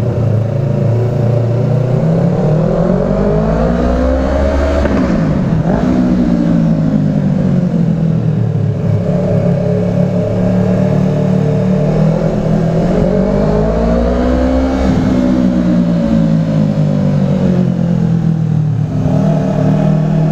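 Yamaha R3's parallel-twin engine with an M4 slip-on exhaust, heard from the rider's position while riding. The engine pitch climbs and then falls away twice as the bike speeds up and slows down.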